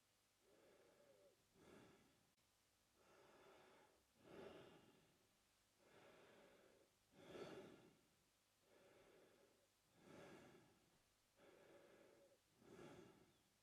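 A man breathing slowly and steadily through his mouth, faint, each breath in and out clearly heard, about one full breath every three seconds.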